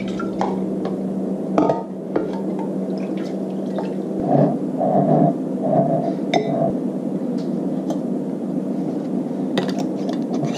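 Wet sauerkraut and its brine spooned and packed into a glass mason jar, with pouring and squelching sounds and a few sharp clinks on the glass. A steady low hum runs underneath.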